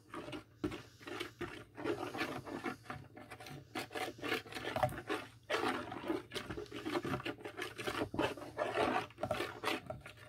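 Spoon or stirring utensil scraping around a container as jello powder is stirred into hot water to dissolve it: a steady run of short rubbing strokes, about two a second.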